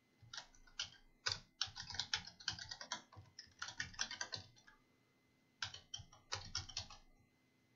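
Computer keyboard typing: quick runs of keystrokes, with a pause of about a second in the middle.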